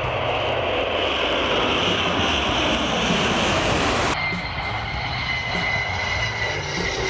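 Jet aircraft flying past: a rushing engine noise that swells to a peak about four seconds in, then cuts off suddenly to a steadier jet sound with a thin high whine.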